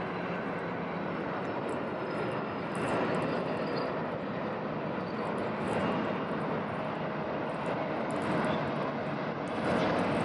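Jet airliner's engines heard as a steady rush of noise, with small swells in loudness, as an arriving plane comes in to land.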